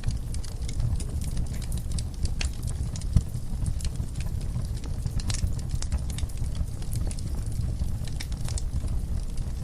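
Wood fire burning in a fireplace: a steady low rumble of flames with irregular crackles and pops of the burning logs, one louder pop about three seconds in.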